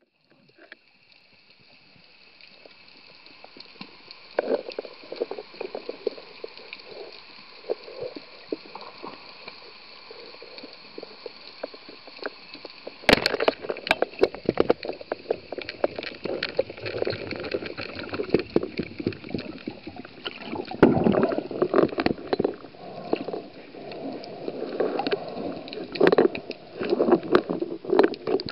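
Underwater sound picked up by a camera held underwater during a spearfishing swim: water swishing and gurgling past the microphone, with irregular clicks and knocks. It fades in at the start, and the clicks and swishing grow much louder about halfway through.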